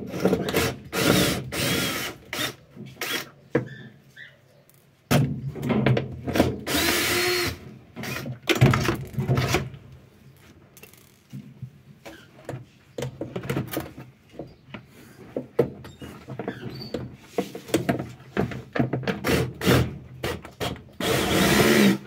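Cordless drill-driver running in several bursts, loudest in the first half and again near the end, as it backs out the screws holding a washing machine's drain pump.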